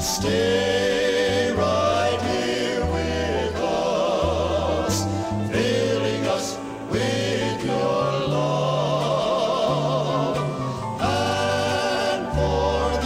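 Male gospel quartet (lead, tenor, baritone and bass) singing in close harmony with vibrato, backed by piano, organ, bass guitar and drums, on a 1971 album recording.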